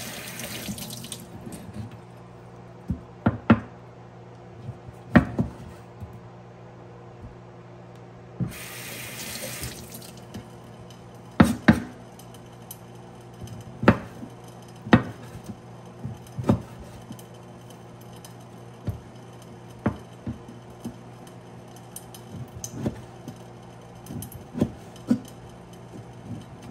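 Kitchen tap running in two short bursts as conch meat is rinsed in a stainless sink, then a knife chopping on a bamboo cutting board in irregular sharp knocks, a second or so apart. A steady low hum runs underneath.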